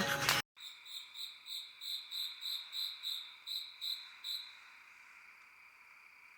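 Night insects: a cricket chirping in an even rhythm of two to three high chirps a second for about four seconds, over a steady high trill from other insects that carries on alone afterwards.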